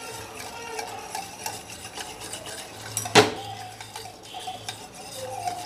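A small wire whisk stirs thin pearl millet porridge in a stainless steel pan, its wires scraping the metal, with one sharp knock against the pan about three seconds in. The porridge is kept moving on a low flame so that it does not form lumps.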